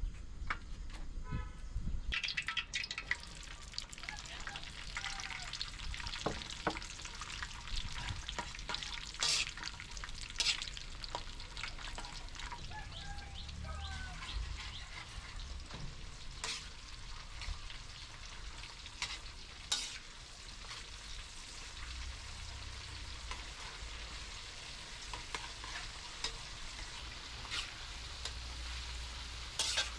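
Food sizzling as it fries in hot oil in a pan, starting about two seconds in, with scattered clinks and scrapes of a utensil stirring it.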